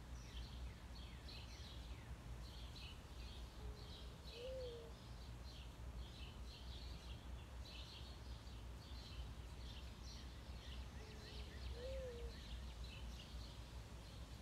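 Mourning dove cooing twice, about seven seconds apart: a soft low coo that swells up and falls away. Small birds chirp steadily and high-pitched throughout, over a low steady rumble.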